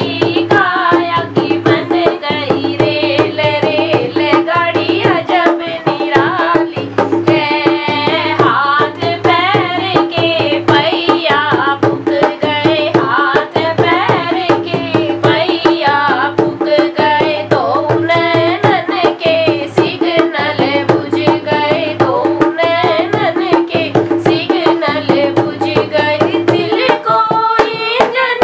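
A girl singing a Hindi devotional bhajan while playing a rope-tensioned dholak with her hands: a fast, steady drum rhythm under the sung melody.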